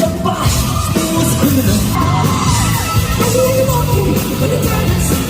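Live band music with a male singer belting and yelling sustained high notes over it.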